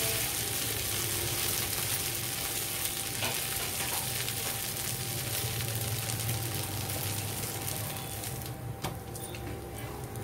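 Ghee sizzling under a dosa on a hot tawa while it is brushed over the crêpe. The sizzle is steady, then drops off sharply about eight seconds in.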